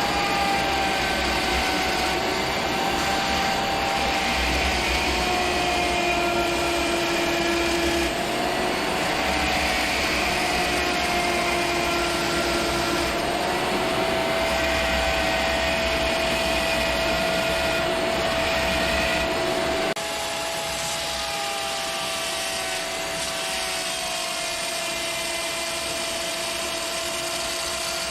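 Small fossil-preparation power tool running steadily on a fossil nautilus shell, with a whine that wavers and dips a little in pitch as it bears on the stone. The level drops slightly about two-thirds of the way through.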